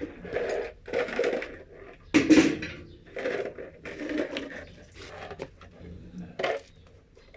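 Metal objects clinking and clattering in a series of about ten short knocks and scrapes, the loudest a little over two seconds in.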